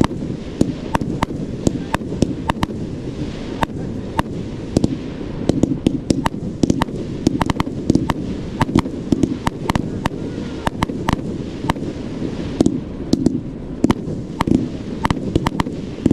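A 1.4G consumer fireworks cake (CLA14012, silver tails to silver drills with colours and glitters) firing a rapid, irregular string of sharp reports, several a second, as its tails rise and burst. A steady low rumble runs underneath.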